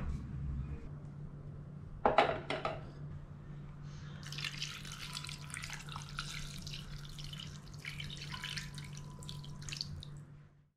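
Water poured from a jug into a glass saucepan over raw chicken pieces, splashing steadily from about four seconds in for some six seconds. A few sharp clinks come about two seconds in, and a steady low hum runs underneath.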